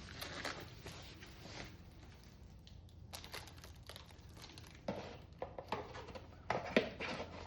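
Crinkling plastic and small clicks as the LED brake light kit's parts are handled, coming in a few short bursts.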